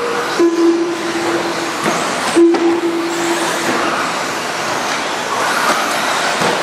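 Radio-controlled racing trucks running around the track, a continuous buzz of motors and tyres. A steady low tone sounds for about a second near the start and again about two and a half seconds in.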